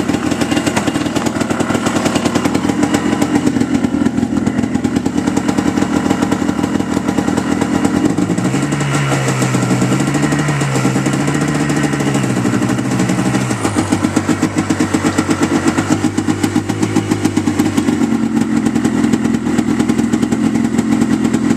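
Yamaha Blaster 200's single-cylinder two-stroke engine, with a freshly rebuilt top end, running steadily. In the middle its speed climbs and wavers for about five seconds, then drops back to a steady lower note.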